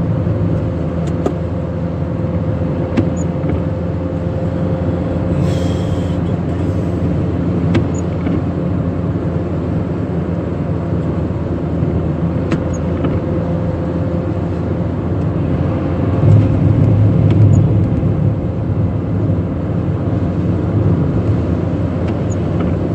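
A car driving on a wet road in rain, heard from inside the cabin: steady engine and road noise with a faint steady hum and a few light ticks. It grows louder for a couple of seconds about two thirds of the way through.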